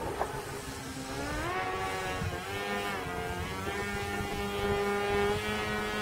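RC model plane's contra-rotating propellers whining as it flies overhead. The pitch rises about a second and a half in, dips briefly a second later, then holds fairly steady as the throttle changes.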